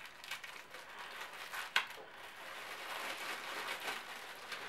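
A small clear plastic bag crinkling and rustling as it is handled and opened, with one sharp click about two seconds in.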